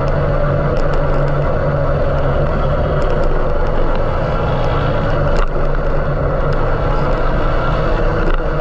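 A steady, loud mechanical drone with a low hum, like a vehicle running, with a few faint ticks over it.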